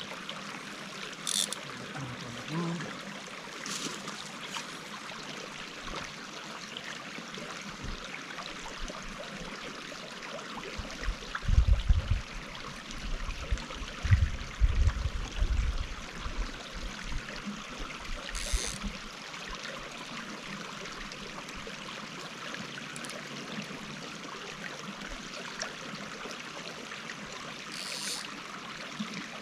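Small mountain creek flowing steadily. A few brief clicks or rustles are heard, and bursts of low rumbling come about twelve to sixteen seconds in.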